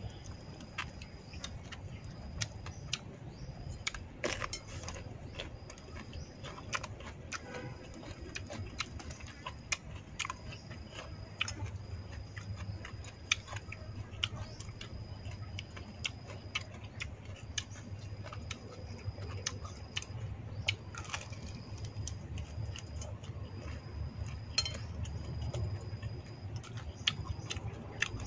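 Eating with chopsticks from a ceramic plate: scattered sharp clicks and taps of the chopsticks on the plate and bowl, with chewing. A thin high-pitched tone comes and goes in second-long stretches, over a low steady hum.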